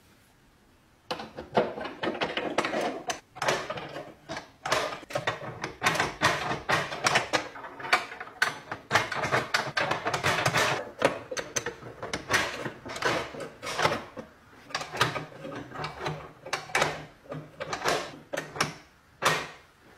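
Restored iron rim lock being worked: a quick, irregular run of metallic clicks, clacks and knocks as its latch and bolt snap and slide, starting about a second in.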